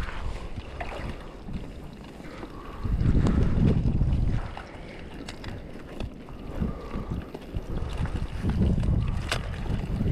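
Wind gusting across the microphone on a sea kayak, the low buffeting swelling about three seconds in and again near the end, with small clicks and knocks on top.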